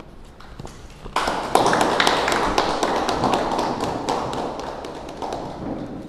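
A group of people clapping in applause. It starts suddenly a little over a second in and tapers off toward the end.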